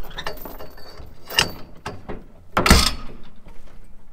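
Steel tie-down chains clinking and a lever-type chain binder being worked with a long bar. There is a sharp metal knock about a second and a half in, and a louder, heavier clank just under three seconds in.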